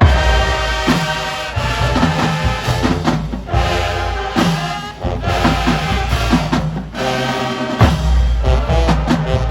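High school marching band playing: brass chords over drums and bass drum, the full band coming in together at the start and playing in short held blasts.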